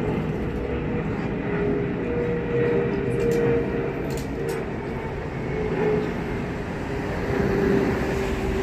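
Twin-engine widebody jet airliner passing low overhead: a steady rumbling roar with a droning hum that wavers in pitch.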